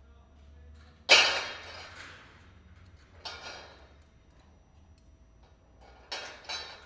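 Sharp hits that ring out and fade: a loud one about a second in, a weaker one a little after the middle, and two quick ones near the end.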